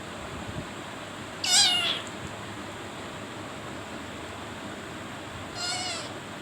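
Two short, wavering, meow-like calls from a pet animal, about four seconds apart, the second fainter than the first.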